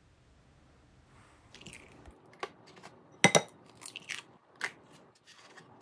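Eggshell cracked on the rim of a glass mixing bowl: a sharp tap with a short glassy ring about three seconds in, among smaller crunches and clicks as the shell is pulled apart.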